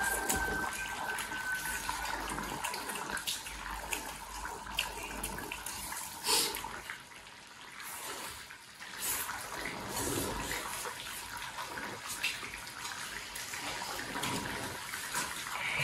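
A pot of soup simmering and bubbling on a tabletop burner, with scattered short clicks of chopsticks against rice bowls as people eat.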